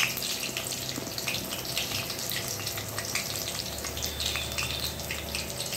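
Cornflour-coated chicken pieces deep-frying in hot oil: a steady sizzle full of small crackling pops, with one sharp pop at the very start.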